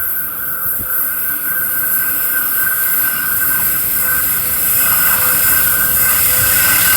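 Freight train's wheels squealing against the rails on a curve: a steady high ringing tone over a hiss, growing slowly louder.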